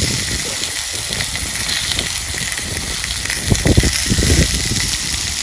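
Lamb chops sizzling in a hot pan, a steady hiss, with a few dull low thumps a little past the middle.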